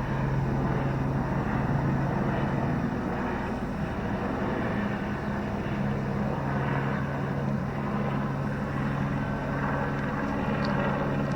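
Helicopter flying over and around, a steady engine and rotor drone with a low hum that fades a few seconds in and then comes back.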